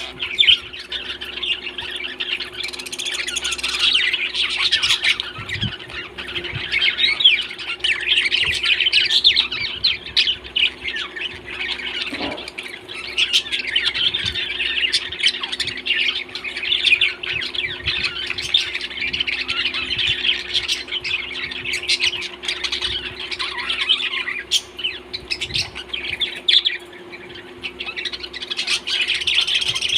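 Flock of small parrots chattering, with many overlapping chirps and squawks, non-stop, over a faint steady low hum.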